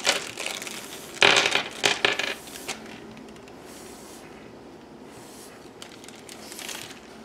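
A handful of small game dice clattering and clicking against each other and onto a surface in a few quick bursts over the first three seconds, then only faint handling noise.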